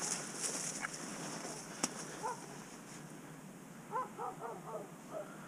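Dry scrub brushing and rustling, with a sharp snap about two seconds in, then short repeated animal calls: a single call, then a quick run of four or five calls about four seconds in.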